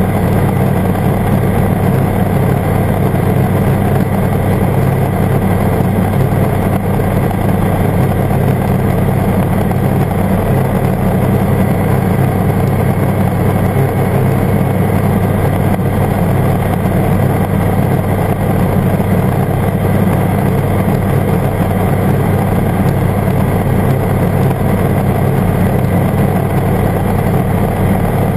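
Ultralight airbike's engine and pusher propeller running steadily in cruise flight: a loud, even drone that holds the same pitch throughout.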